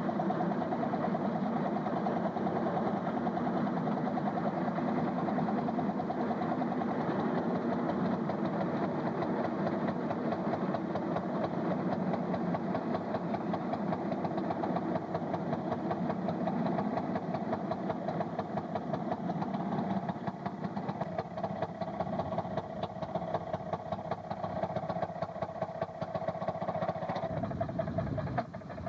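Railroad motorcar's small two-stroke engine running with a rapid, even firing beat. The sound eases off somewhat in the second half and changes just before the end.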